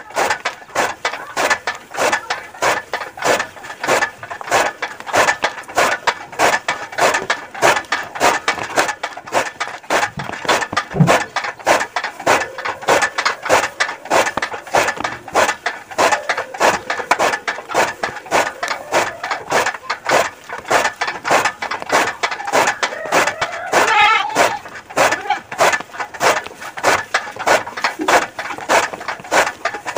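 Hand-cranked chaff cutter (kutti machine) chopping green fodder: its flywheel-mounted blades cut through the stalks in a fast, even rhythm of sharp chops as the crank is turned.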